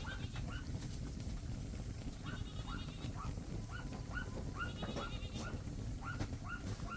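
Goats bleating in a string of short calls, two to three a second, with a few higher, longer calls now and then over a steady low rumble.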